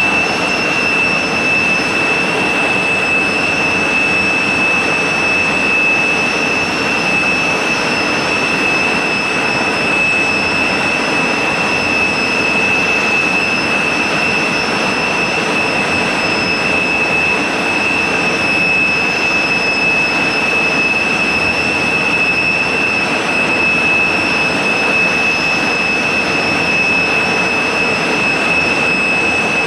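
Fouga Magister's twin Turbomeca Marboré turbojets running steadily at ground idle, a high steady whine over a broad rushing noise.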